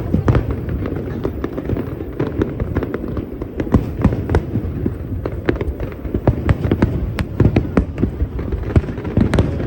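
Fireworks display: a rapid, unbroken string of bangs and crackles, several a second, over a low rumble.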